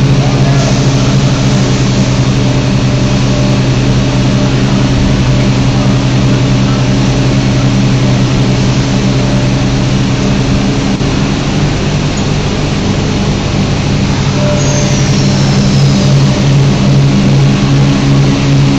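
Roller hearth furnace running: a loud, steady machine drone, a low hum of several steady tones over a constant rushing noise, with no change in speed.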